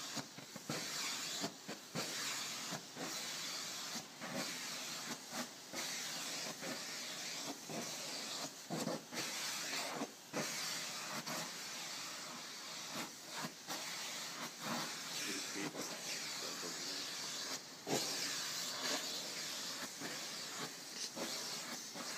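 Vacuum cleaner running, its hose nozzle drawn through a cat's fur: a steady hiss of rushing air that dips briefly many times.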